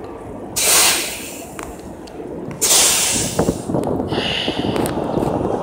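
Articulated city bus at a stop releasing air in two loud hisses about two seconds apart, a shorter, higher hiss following, as its doors close, over the steady rumble of its idling engine.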